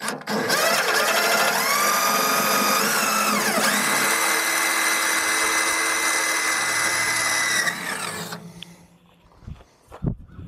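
Cordless drill running a small bit through the steel floor of a tractor loader bucket to make a pilot hole: a steady motor whine whose pitch drops about a third of the way in, then holds steady before the drill winds down about three-quarters of the way through. A few light knocks follow near the end.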